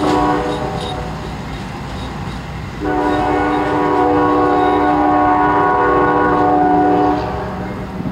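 Amtrak GE P42DC diesel locomotive's air horn sounding a chord as the train pulls away: one blast ends about half a second in, and a long blast of about four seconds starts near three seconds in, over the steady rumble of the moving train.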